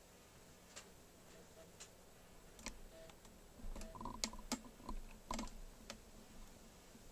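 Keys being pressed on the StarWriter Pro 5000 typewriter's keyboard: a dozen or so irregular key clicks, sparse at first, then a quicker cluster of louder presses in the middle.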